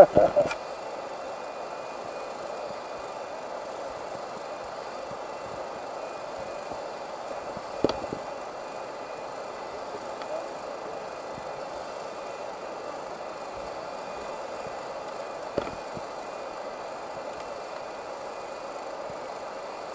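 Steady rush of river water, with two short knocks about eight and fifteen and a half seconds in. A brief loud burst comes at the very start.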